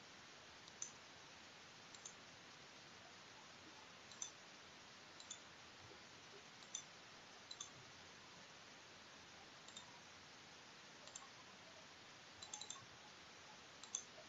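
Computer mouse buttons clicking about ten times at irregular intervals, several as quick double clicks, over a faint steady hiss.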